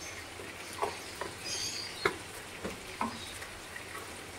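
A handful of light, irregular clicks and taps, about five over four seconds, over a low background hiss.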